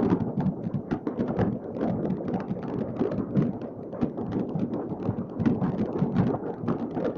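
Many fireworks going off at once, heard as one continuous crackle of overlapping pops and bangs over a constant low rumble of booms.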